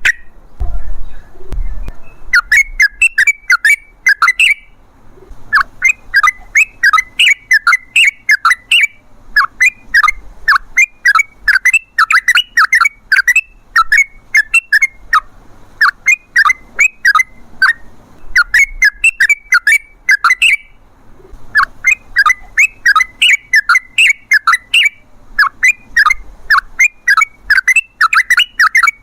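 Yellow-vented bulbul singing loud, fast bubbling chattering phrases of about two seconds each, repeated again and again with short pauses, starting about two seconds in.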